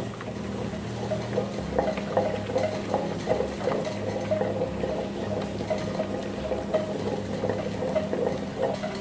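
Electric tabletop wet grinder running, its stone rollers turning in the steel drum and grinding wet balloon vine leaves into paste. There is a steady motor hum under irregular small clicks and wet churning.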